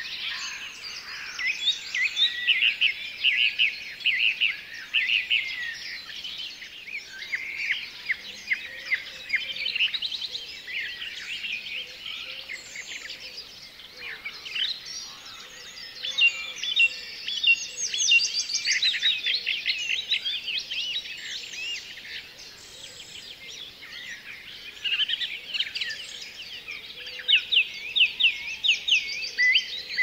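Several songbirds singing at once, a dense dawn-chorus-like mix of quick repeated chirps and trills that overlap and swell in bursts.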